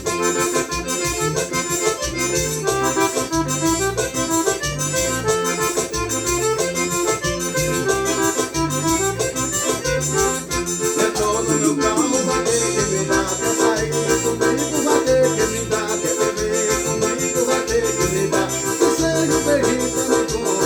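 Forró music: an accordion plays a melody over a steady beat and a bass line alternating between two notes.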